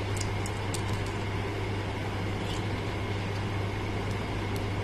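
Steady low machine hum with a hiss over it, with a few faint light clicks in the first second and once near the end.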